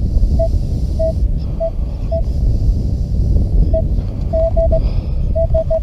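Metal detector giving short beeps of one steady mid pitch, singly and in quick bunches of two or three, as its coil is swept over loose dug sand, signalling metal under the coil. Wind rumbles on the microphone throughout and is the loudest sound.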